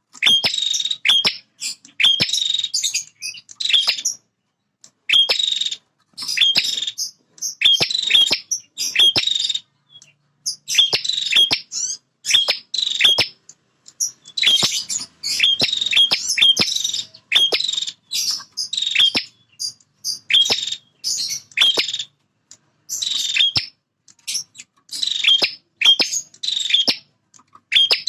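Male prinia (prenjak) singing in loud, rapid bursts of high chattering notes, each under a second and repeated over and over with short gaps. This is the excited territorial song played to provoke other prinias into singing.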